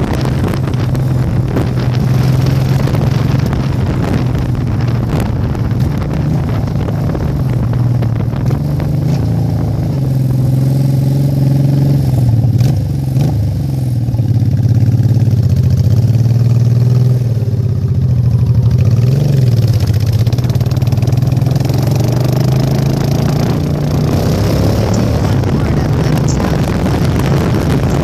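Motorcycle engine running at road speed, with wind noise on the microphone. About midway the engine note dips and rises several times and the wind hiss eases off for a while, then the hiss picks up again near the end.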